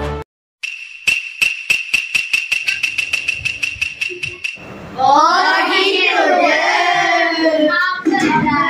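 A rapid, even ticking over a steady high ringing tone for about four seconds, then children's voices calling out together in long, sliding, sing-song tones.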